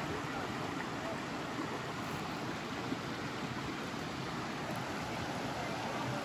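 Steady rush of creek water flowing over a small cascade.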